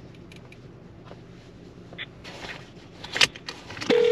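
A low steady hum with a few small clicks and a sharp tap about three seconds in; near the end a smartphone on speakerphone starts the steady ringing tone of an outgoing call.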